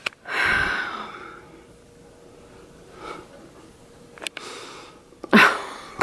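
A person breathes out heavily for about a second, and near the end there is a short, sharp breath, with a faint click between the two.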